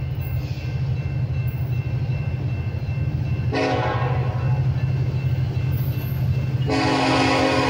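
Two Union Pacific SD70ACe diesel locomotives leading a freight train approach with a steady low engine rumble. The lead locomotive sounds its horn: a chord comes in about three and a half seconds in and fades, and a second, louder blast starts near the end.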